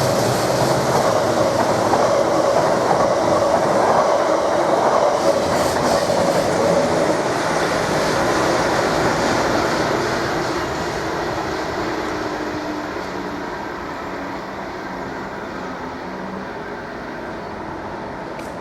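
Train passing close by, its wheels clattering over the rail joints; the noise fades steadily through the second half as the train moves away.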